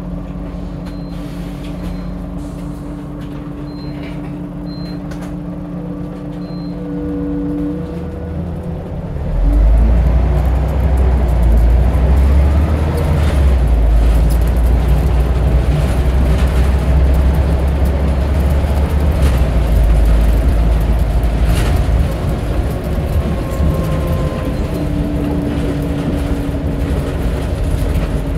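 Scania DC9 9.3-litre five-cylinder diesel of a double-decker bus running at a steady idle, then about nine seconds in rising sharply to a loud low rumble as the bus pulls away under load. It eases off again after about 22 seconds. Faint short high beeps sound a few times in the first seven seconds.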